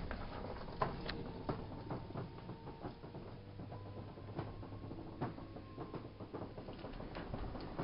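Electric garage door opening: a faint steady motor whine under continuous rattling and clicking of the moving door.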